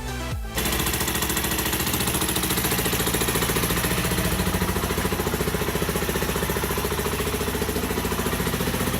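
Suzuki DR125's single-cylinder four-stroke engine idling with a steady, rapid putter, run to warm up and let freshly applied exhaust gum set on the exhaust joint. Background music plays briefly at the start before the engine comes in.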